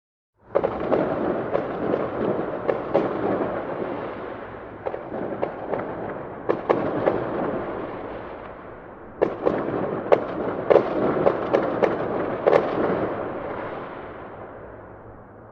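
Fireworks going off in a dense barrage of crackling and sharp bangs, starting abruptly about half a second in. The barrage thins out, swells again about nine seconds in, then fades near the end.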